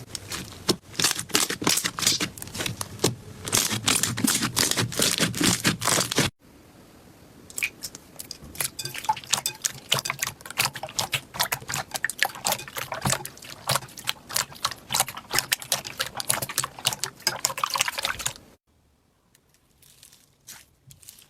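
Slime worked by hand, giving wet clicking and popping crackles in quick succession. The sound cuts abruptly about six seconds in and again near the end, where it turns much quieter with only a few faint clicks.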